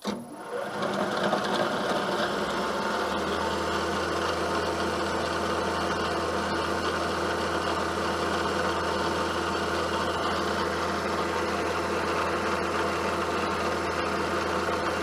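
Milling machine spindle starting up and then running steadily while drilling a tap-drill hole in a Delrin knob, with a low hum joining in about two seconds in.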